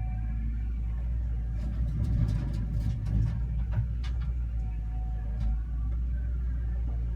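Atlas 1302 wheel excavator's diesel engine running steadily, with several short knocks and clanks from about a second and a half in to past the middle.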